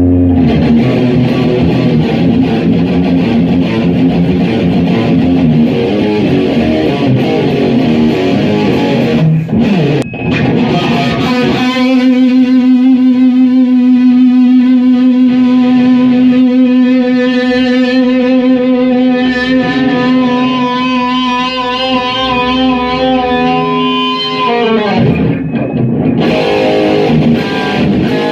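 Electric guitar played through a distorted Marshall JCM2000 60-watt amp: quick phrases, then from about twelve seconds in one long sustained note with vibrato, held for about thirteen seconds before it slides down and the playing resumes.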